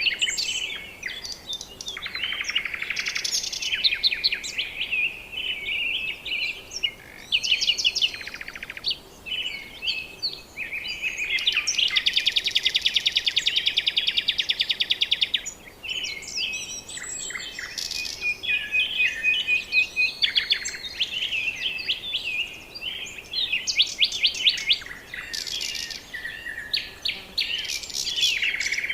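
Several birds calling and singing at once, with varied chirps and whistles. About eleven seconds in, one bird gives a long, fast trill lasting about four seconds.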